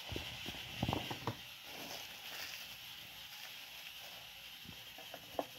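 Faint handling noise from a Pokémon card tin: a few light clicks and taps in the first second or so, another near the end, and low hiss in between.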